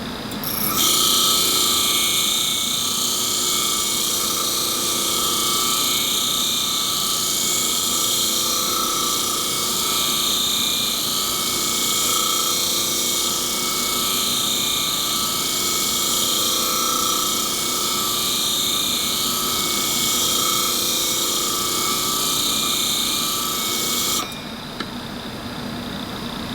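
Clipper-blade sharpening machine grinding the dull steel comb of an A5 clipper blade on its spinning disc: a steady high grinding hiss over the motor's hum, swelling and fading about every four seconds. The grinding stops near the end, leaving the motor running.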